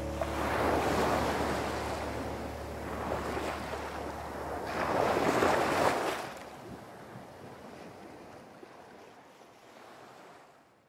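Sea waves washing ashore, two surges about four seconds apart, the sound fading out near the end.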